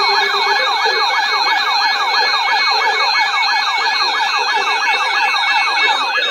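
Emergency alert attention signal: a loud electronic siren-like tone sweeping up and down several times a second, with steady high beeping tones over it. It breaks off at the very end.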